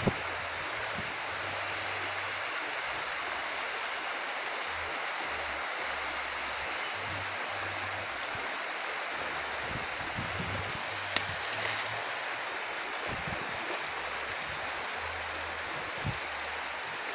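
Steady rushing hiss of shallow river water flowing. A single sharp click cuts through it about eleven seconds in, with a fainter one near the end.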